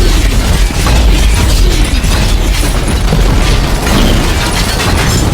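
Loud, unbroken explosion and blast sound effects, dense rapid bangs with a heavy low rumble, with no pauses.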